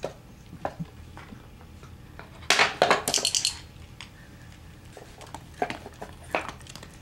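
A wooden dog puzzle box being knocked and rattled as a dog paws and noses at it: a few light clicks, then a loud burst of rapid clattering about two and a half seconds in lasting about a second, then a few more knocks near the end.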